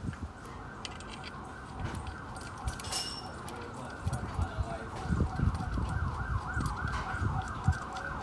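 An emergency vehicle siren sounds steadily throughout, sweeping up and down in quick repeated cycles. A few low knocks come in the second half.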